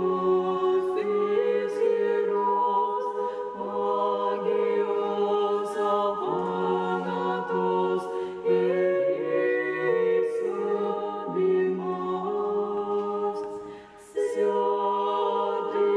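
Small women's church choir singing Orthodox liturgical chant a cappella in several parts: slow, held chords that change every second or two. There is a short break for breath near the end before the singing resumes.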